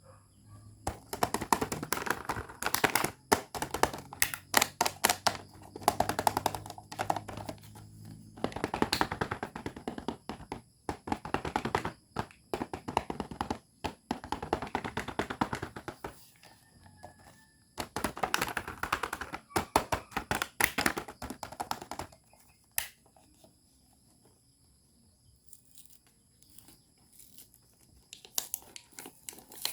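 Small plastic toy parts and packaging being handled, making runs of rapid clicking and tapping that last several seconds each, broken by short pauses. It goes mostly quiet about two-thirds of the way through, then a few taps come near the end.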